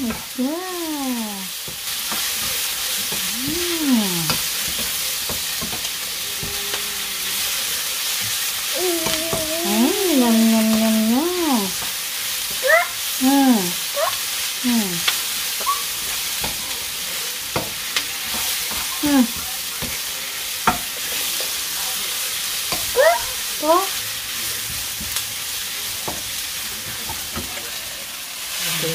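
Sliced onion and carrot sizzling in hot oil in a wok, stirred with a wooden spoon that clicks and scrapes against the pan. Now and then a voice makes short rising-and-falling calls.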